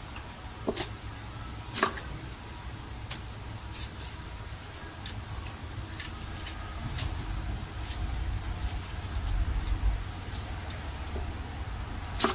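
Kitchen knife cutting young corn ears over a plastic cutting board: irregular sharp clicks and taps as the blade cuts through and strikes the board. A low rumble underneath grows louder in the last third.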